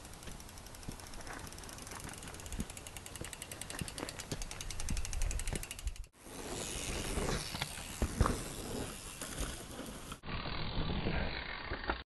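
Mountain bike on a dirt trail: the Hope Pro II rear hub's freewheel ratchet buzzing in a rapid run of clicks while the bike coasts, with tyres rolling on dirt and a few thumps from the bike, the loudest about eight seconds in. The sound changes abruptly at edits, about six and ten seconds in, and drops out near the end.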